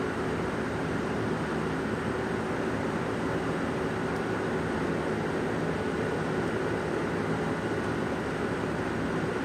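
A large engine running steadily at constant speed, an even hum with several steady tones and no change in pitch or level.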